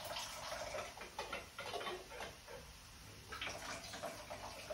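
Pasta water being drained off into a kitchen sink from a pot held tilted with its lid on: uneven splashing and dripping with light, irregular clicks of metal on metal.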